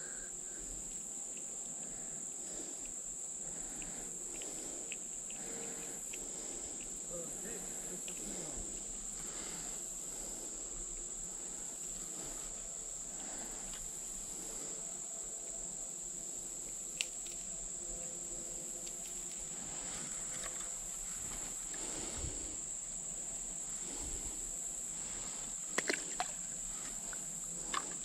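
A chorus of insects trilling steadily at a high pitch, with a few faint clicks about two-thirds of the way in and near the end.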